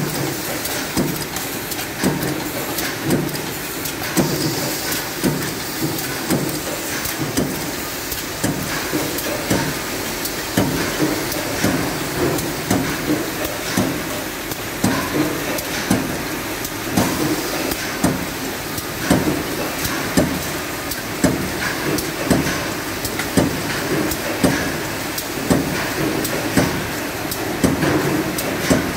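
Automatic tinplate-sheet feeder and power press running in cycle: a regular clunk about once a second over a steady mechanical clatter.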